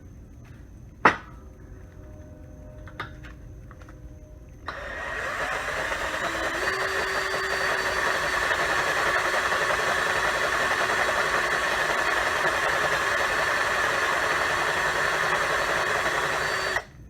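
Electric drill boring a 5/8-inch hole through a steel shock-mount bracket: a loud, steady whir and grind that starts about five seconds in, with a held squealing note from the bit, and cuts off suddenly just before the end. A single sharp click about a second in.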